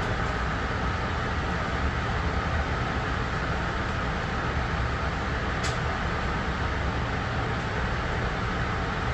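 Long Island Rail Road M3 electric multiple-unit car running at speed, heard from inside: a steady rumble and rolling noise of wheels on rail with a faint steady whine, and one brief sharp click a little past the middle.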